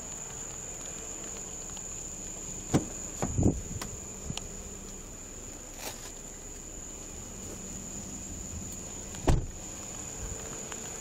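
Steady high-pitched drone of night insects, with a few short thumps about three seconds in and another past nine seconds.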